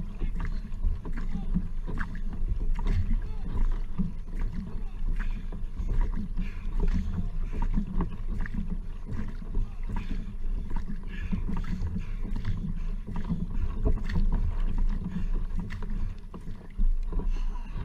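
Paddle strokes from a double-bladed paddle splashing on alternate sides of a racing kayak at racing pace, a regular run of splashes over a steady low rumble.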